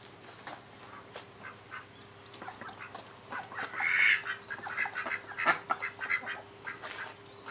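A flock of mallard-type ducks quacking: after a quiet start, a run of short quacks begins about two and a half seconds in and is loudest about halfway through.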